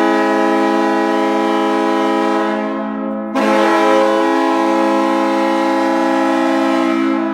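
Kahlenberg T3A air horn blowing as a hockey goal horn: a low, steady horn tone that fades out about three seconds in, then a second long blast starting right after and held until it fades near the end.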